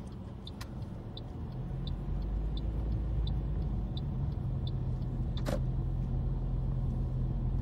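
A car's turn indicator ticking steadily, about three ticks a second, stopping about four seconds in. Under it the car's engine and road noise grow louder as it moves off, then settle into a steady hum, with a single sharp knock about two-thirds of the way through.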